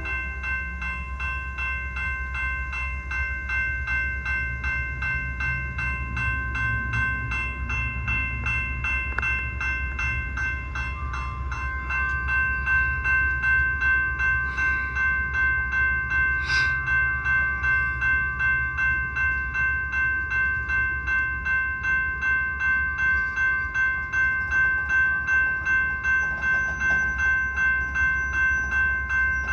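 A bell rings steadily, about two strokes a second, over the low rumble of diesel locomotives; the ringing gets louder about twelve seconds in.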